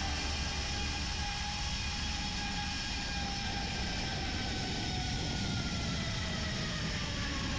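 Zip-line trolley pulleys running along a steel cable: a steady metallic whine of several tones over rushing wind noise.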